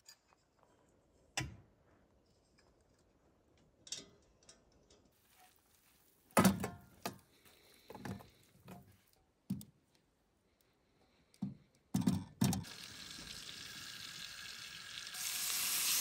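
Metal utensils clanking and scraping as cooked onions and mushrooms are tipped from a pan into a small steel pot with tongs, a string of sharp clatters in the middle. Then garlic and butter start sizzling in a cast-iron pan on a camp stove, a steady hiss that grows louder near the end.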